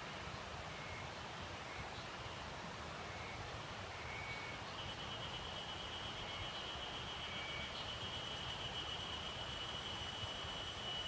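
Forest ambience: a steady hiss of the woods, with short high chirps repeating about once a second and, from about five seconds in, a continuous high, pulsing trill from an unseen animal.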